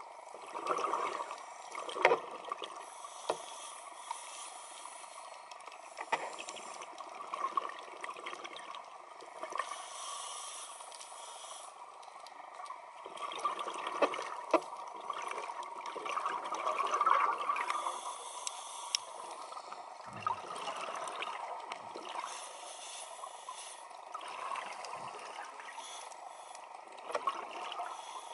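Scuba regulator breathing heard underwater: exhaled bubbles gurgling in surges every few seconds, with a few sharp clicks in between.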